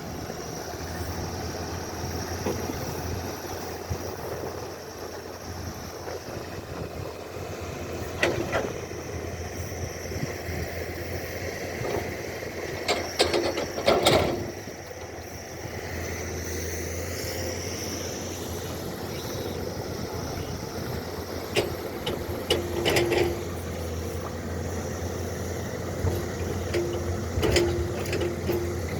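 A construction machine's engine running steadily, with occasional sharp knocks and clanks, a few of them ringing briefly.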